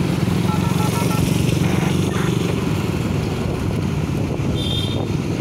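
Steady low rumble of motorcycle engines running at cruising speed alongside a group of bicycles, with a few faint short beeps about half a second in and a faint high ring near the end.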